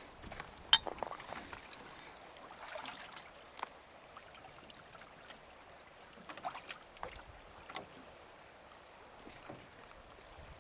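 Scattered light knocks and clicks in a small fishing boat, the sharpest about a second in, over a faint steady hiss of water and air.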